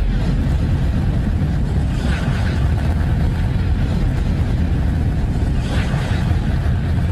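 Steady low rumbling drone presented as the sound of Neptune's moon Triton, with a faint hiss swelling about two seconds in and again near six seconds.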